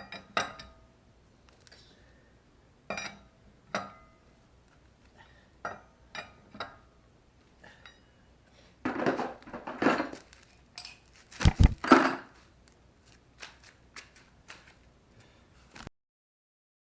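Hand tools and metal parts being handled: scattered metallic clinks and knocks, busier about nine seconds in, with a heavier knock and clatter about a second and a half later.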